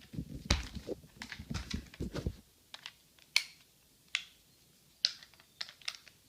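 Plastic clicks and cable handling noise as Cat 6 patch cable RJ45 plugs are unplugged from and plugged into a cable tester: a run of rustling knocks in the first couple of seconds, then scattered single sharp clicks.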